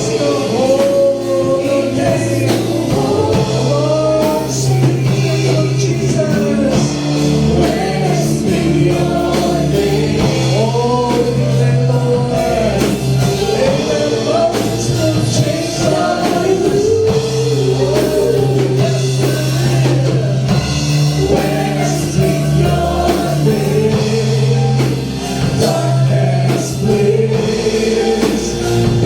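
Worship band playing a praise song with voices singing over steady bass and drums.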